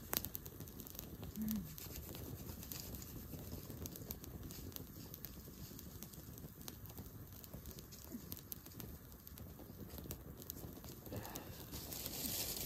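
Small campfire of dry twigs and grass crackling, with many small, irregular pops and a sharper snap at the very start. Near the end there is a louder rustling.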